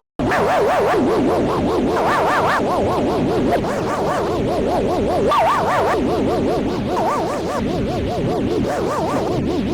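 Electronic emergency alert alarm tones, several layered on top of each other, each warbling rapidly up and down in pitch several times a second. They begin right after a brief gap.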